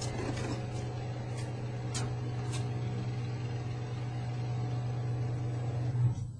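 A steady low hum, with a few faint ticks in the first few seconds; it cuts off suddenly at the end.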